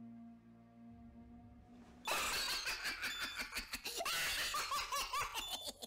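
A low, held music chord, then about two seconds in a sudden, loud burst of rapid, repeated laughter that carries on to the end.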